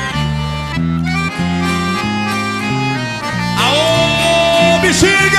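Sertanejo band music: an accordion-led instrumental passage over a bass line, with some notes bending in pitch in the second half.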